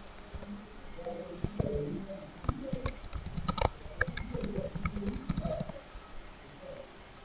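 Typing on a computer keyboard: a run of quick keystrokes that stops about a second before the end.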